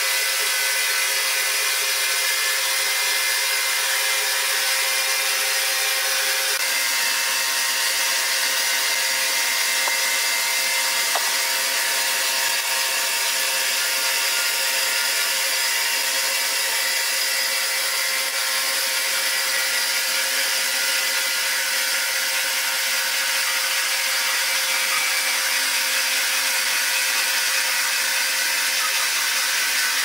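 Belt-driven band sawmill running, its band-saw blade cutting lengthwise through a large log: a steady, high-pitched hiss of sawing with a constant whine from the machine.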